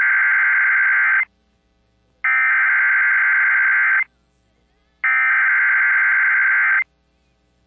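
Emergency Alert System SAME header: three identical bursts of digital data tone, each just under two seconds long with about a second of silence between them. They mark the start of a new alert, here a flash flood warning.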